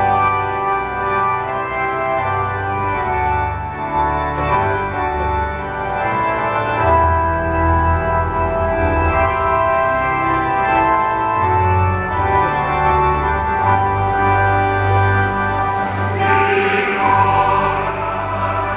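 Organ playing a hymn in sustained chords over a deep, shifting bass line, with a choir and congregation singing along.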